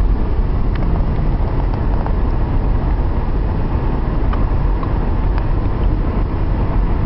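Steady road and engine rumble heard from inside a moving van's cabin, with a few faint clicks.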